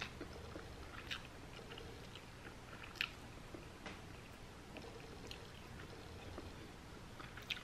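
Faint closed-mouth chewing of a seaweed-wrapped cauliflower sushi roll, with a few soft clicks, the loudest about three seconds in.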